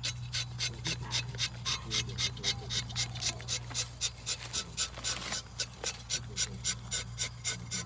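A saw cutting through rubber tree wood: a steady rasping stroke about four times a second.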